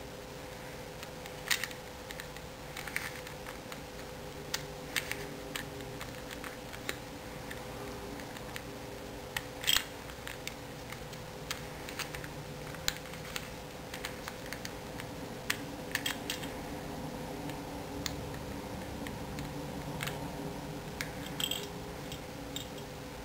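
Plastic pieces of a custom shape-modded 3x3x2 domino twisty puzzle clicking irregularly as its layers are turned by hand.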